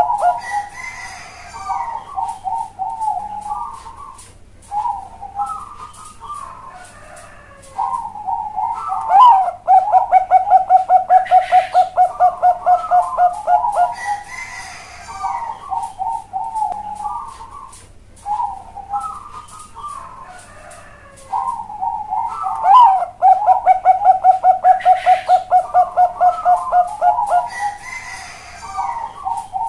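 Bangkok-strain zebra dove (perkutut bangkok) singing its cooing song over and over. Each cycle is a few short, hurried coo phrases that lead into a loud, long run of rapid, evenly spaced coos, about four a second for several seconds. The full cycle is heard twice.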